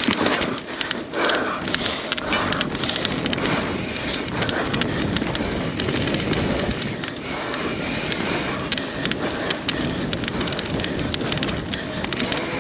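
Mountain bike descending a trail at speed: tyres rolling over dirt and rocks, with a steady rush of noise and many quick clicks and knocks from the bike rattling over rough ground.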